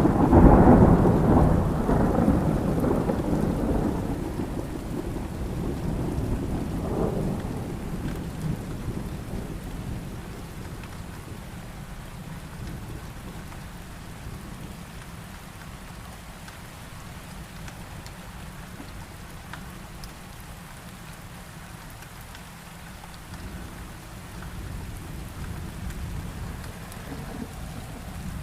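Thunder cracks loudly and rolls on, fading over several seconds, with a second swell partway through, over heavy rain falling steadily. A softer rumble of thunder rises again near the end.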